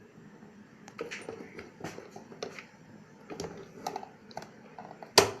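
Scattered light clicks and taps from fingerprint door lock parts being handled and fitted to the door, with one sharp, much louder knock about five seconds in.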